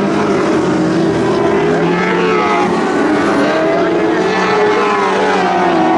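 Several Lightning Sprint cars' engines racing together on a dirt oval, each revving up and down through the turn so that several high engine notes overlap and rise and fall.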